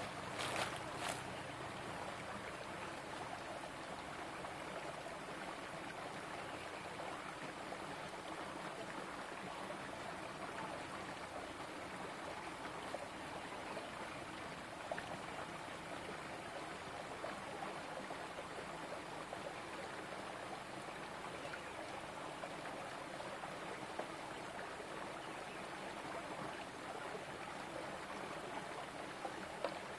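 A small, shallow stream trickling steadily over and between rocks. A couple of faint knocks come about a second in.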